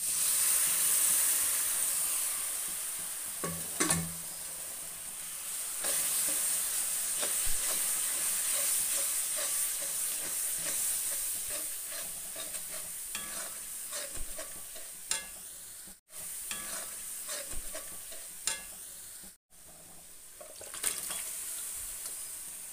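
Cooked beef and onion-spice masala frying in a wide metal kadai, sizzling steadily while a metal spatula scrapes and stirs through it. The sizzle starts loud and slowly fades, cutting out briefly twice.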